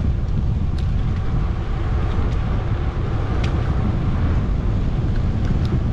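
Wind buffeting the microphone during a bicycle ride: a steady, loud low rumble, with a few faint ticks on top.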